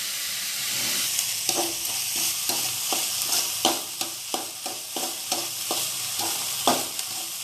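Chopped onions sizzling in hot oil in a metal kadai while a metal spatula stirs them, clinking and scraping against the pan in quick repeated strokes from about one and a half seconds in. The onions are being sautéed with salt until they wilt.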